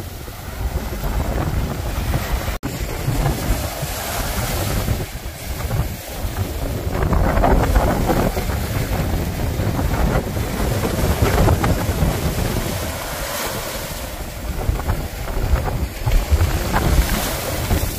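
Small surf waves breaking and washing up a sandy beach, swelling and easing, with wind buffeting the microphone.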